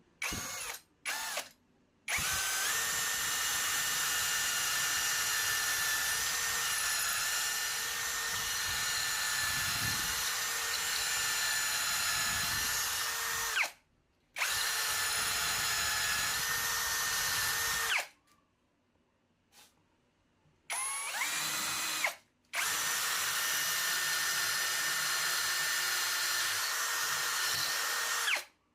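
Power drill running in repeated bursts: two quick blips, then long steady runs with a high motor whine that spins up at each start and stops in between.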